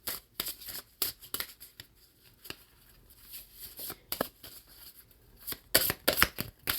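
Light rustling and small clicks of cards or paper being handled, scattered and then busier near the end.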